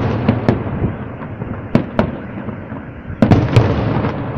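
Aerial fireworks shells bursting: a continuous rumble of booms and crackle with sharp bangs every second or so, several close together a little after three seconds in.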